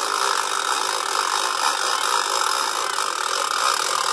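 Hand-cranked boat trailer winch being wound steadily, its gears and ratchet pawl making a continuous rattling whirr.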